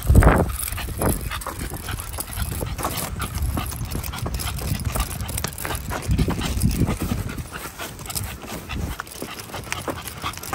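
An American bully dog panting as she walks on a leash, with irregular footsteps on asphalt.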